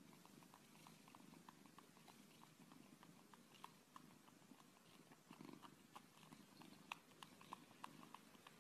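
Faint purring from a cat suckling on a person's finger, with soft irregular sucking clicks several times a second.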